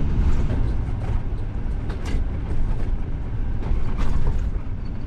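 Vehicle driving on a paved road: a steady low rumble of engine and road noise, with a few short knocks or creaks about two seconds and four seconds in.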